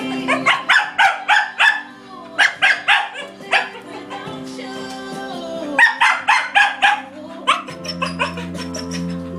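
Dogs, a cocker spaniel and a chow, barking at a caged pet rabbit in quick runs of sharp barks, about four a second, with short pauses between the runs. Music plays in the background.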